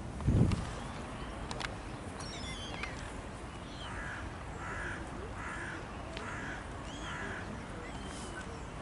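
A low bump near the start, then thin, high European goldfinch call notes. In the middle comes a run of five harsh calls about half a second apart from another, larger bird.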